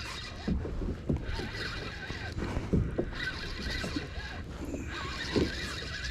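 Freshly hooked gurnard croaking in a string of short grunts, mixed with small knocks and water noise around a small boat.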